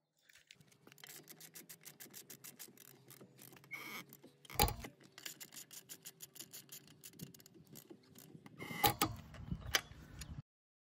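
Click-type torque wrench worked on a car wheel bolt: faint, rapid, even ratchet ticking, with one sharp click about halfway through and a few louder knocks near the end.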